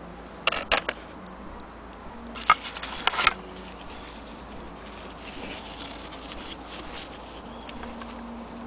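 Handling noise: a few sharp clicks about half a second in, then a louder cluster of clicks and rustling around two and a half to three seconds, from hands moving small clock parts and a paper towel.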